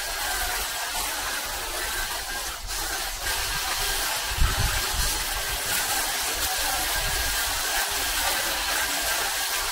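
Pole hedge trimmer running steadily, its reciprocating blades cutting through cypress hedge foliage with a continuous whirring buzz.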